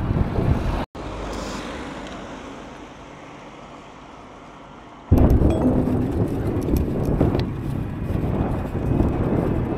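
Wind rumbling over the microphone of a camera riding along on an e-bike, mixed with road noise. The sound cuts out abruptly about a second in, comes back quieter and fades away, then returns loud about five seconds in.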